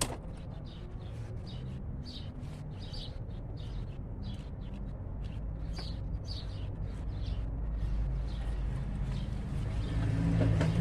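Small birds chirping repeatedly over a steady low rumble, with one sharp click at the very start.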